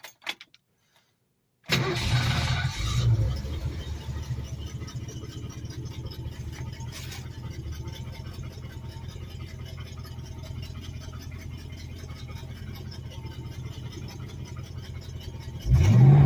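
An engine catches and starts about two seconds in, then settles into a steady idle, and is revved once near the end.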